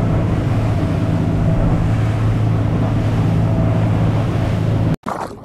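Center-console fishing boat running at speed: a steady engine drone under wind and water rushing past. It cuts off suddenly near the end.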